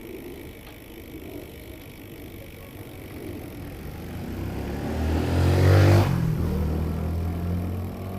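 A car approaches and passes close by. Its engine hum and tyre rush build to a peak about six seconds in, then ease off.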